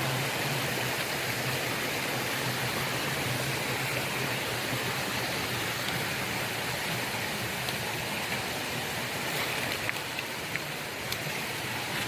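Forest stream flowing: a steady rush of water with no let-up, with a few light clicks near the end.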